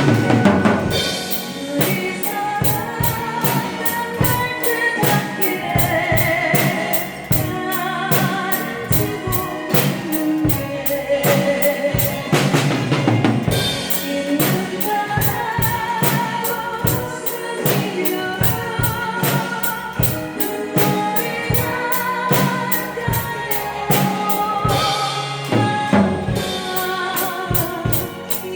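Drum kit played to a steady beat along with a recorded ballad, with a singer's voice, full of vibrato, carrying the melody over the drums.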